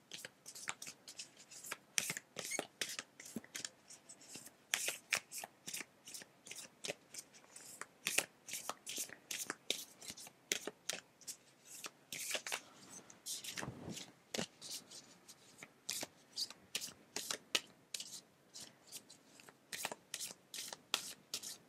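A deck of oracle cards being shuffled by hand, hand to hand: a steady run of quick card slaps and flicks, a few each second, with one longer rustle about two-thirds of the way through.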